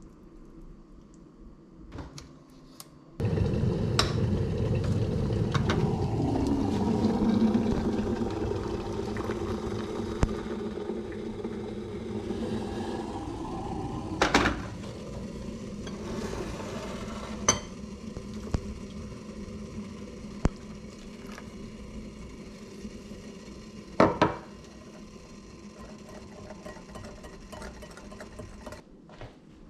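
Kitchen work noises: a steady rushing sound starts suddenly about three seconds in and slowly fades, with a few sharp clinks of glassware and a metal whisk against dishes.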